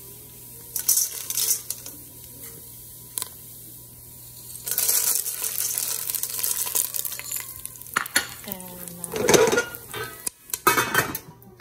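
Dry popcorn kernels poured from a bowl into a stainless-steel pot of hot oil, rattling on the metal and sizzling for about three seconds around the middle, with a shorter rattle about a second in.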